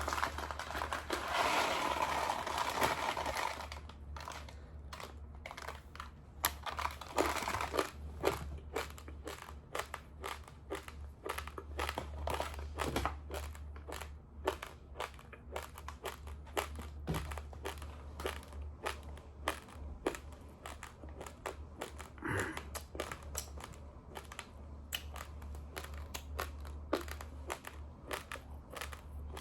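Uncooked long-grain Dawaat Rozana rice crunching as it is chewed, a dense run of sharp crunches close to the microphone. A rustling noise fills the first few seconds, and a steady low hum runs underneath.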